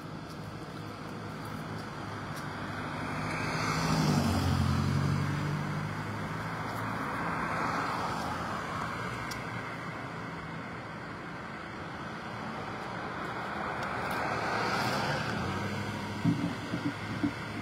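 Road traffic: cars passing on the street. The loudest passes about four seconds in, its engine note dipping as it goes by, and quieter ones follow about halfway through and near the end, with a few small knocks at the very end.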